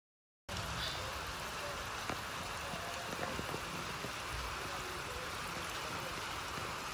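Steady rain, an even hiss that begins suddenly about half a second in.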